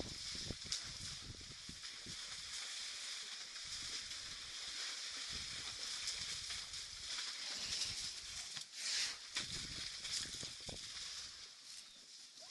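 Outdoor ambience with a steady high hiss, and scattered low thumps and rustles as African elephants move past close by.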